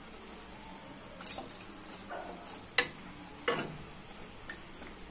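Steel ladle stirring vegetables and water in a non-stick kadai, with a few sharp knocks of the ladle against the pan, the loudest about three and a half seconds in.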